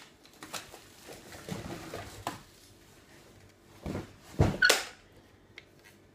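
Handling noise of objects being picked up and set down: scattered soft knocks and clicks, then a louder thump and a short rustle about four and a half seconds in.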